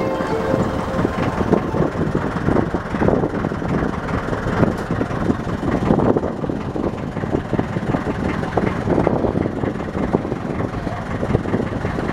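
Small motorboat under way, its engine running steadily beneath a rough rush of water and wind.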